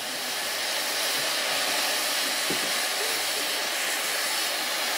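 Steady hiss of steam escaping from the standing LNER A3 Pacific steam locomotive 60103 Flying Scotsman, growing slightly louder about half a second in.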